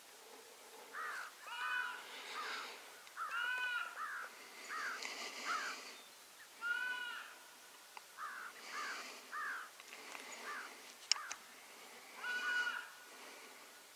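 Short, harsh animal calls repeated in quick runs of two to four, with a single sharp click about eleven seconds in.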